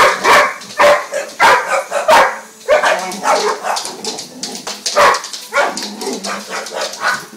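Boxer dog barking over and over in quick succession, sharp and loud, with a short lull about four seconds in before the barking picks up again.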